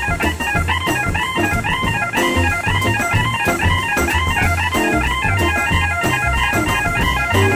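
Hammond B-3 organ jazz: quick, choppy runs of notes played over a steady bass line.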